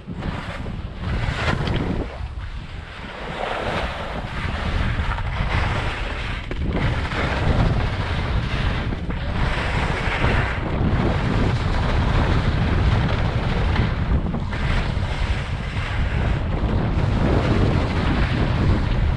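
Wind rushing and buffeting over a GoPro microphone during a fast ski descent, a steady low rumble throughout. Over it the skis hiss and scrape across the snow, swelling and fading every few seconds with the turns.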